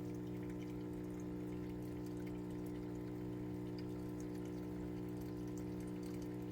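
Electric air pump running with a steady, even hum, with faint trickling water behind it.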